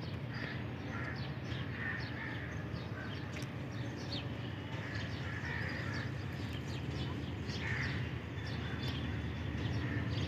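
Birds calling over and over, short harsh calls, above a steady low rumble from a diesel train approaching in the distance. The rumble grows a little louder near the end.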